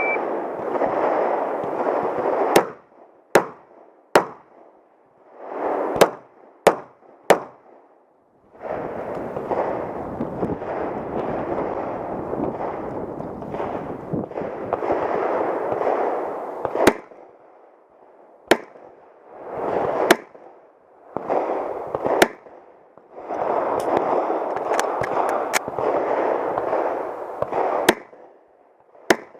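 Pistol shots, about a dozen sharp single reports spaced a second or more apart, with stretches of rushing noise between them that start and stop abruptly.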